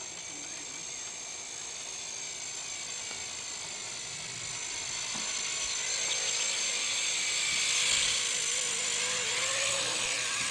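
Walkera CB100 coaxial micro RC helicopter in flight: a steady high-pitched whine from its small electric motors with rotor buzz, wavering slightly in pitch. It grows louder toward the middle as it flies near, then eases a little near the end.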